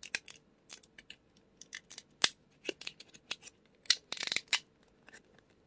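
Scattered sharp clicks and snaps of a small plastic microSD card pack being handled, with one louder snap about two seconds in and a quick rattle of clicks around four seconds.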